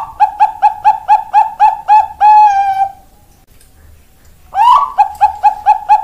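Bangkok zebra dove (perkutut bangkok) singing: a quick run of about eight short staccato coos ending in one long drawn-out note. The song phrase starts again about four and a half seconds in.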